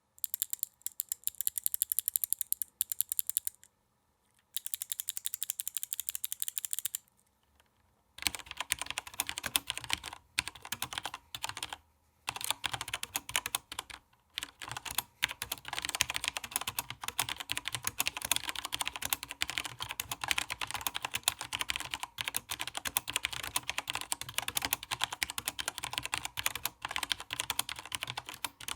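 Typing on a SteelSeries 6Gv2 mechanical keyboard with linear Cherry MX Black switches, ABS keycaps and plate-mounted stabilizers: rapid clacking keystrokes. The typing breaks off briefly twice in the first eight seconds, then runs on without a break.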